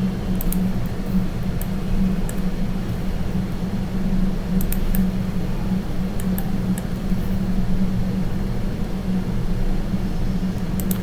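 Steady low hum with a few faint, sharp computer clicks scattered through, some in quick pairs, from mouse buttons and keys during modelling work.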